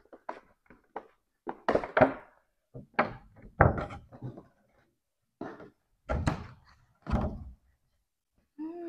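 Small cardboard product box being opened and handled: a string of clicks, taps and dull thunks as the lid is worked open and a clear plastic insert is pulled out.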